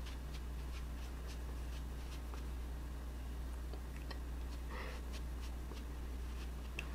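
Makeup sponge dabbing and blending liquid foundation over the face: faint soft taps, about three a second, over a steady low hum.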